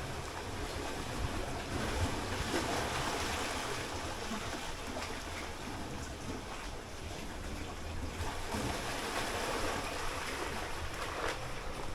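Sea waves washing in and out among rocks: a steady rushing that swells and eases, with a low rumble of wind on the microphone.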